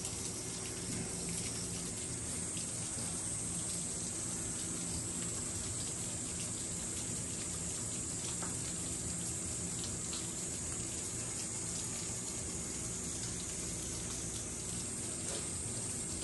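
Steady rain with rainwater running, an even, unchanging hiss.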